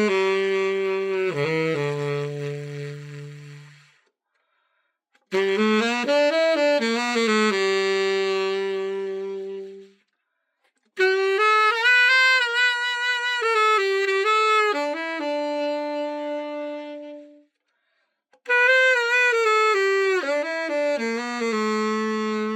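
Tenor saxophone, a copy of the Selmer Super Action II, played in four short phrases of held notes with brief pauses between them: a test play after a full overhaul.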